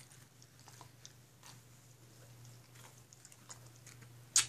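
Faint rustling and small clicks of a dog harness being handled and fitted, with one sharp click near the end, over a low steady hum.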